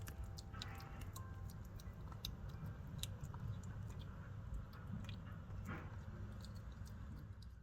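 A cat chewing food, with irregular small crunching clicks throughout.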